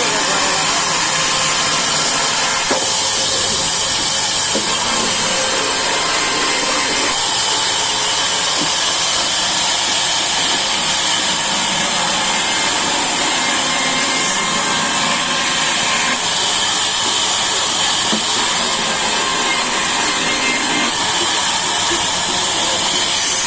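Sawmill saw running steadily through wood, a continuous even whirring and hissing cut with no break.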